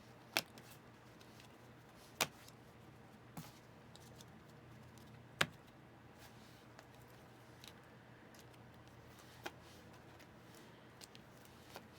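Trading cards being handled and flipped through by hand: a handful of light, sharp clicks and snaps of card stock spaced a second or more apart, the loudest about five and a half seconds in, over a faint steady hum.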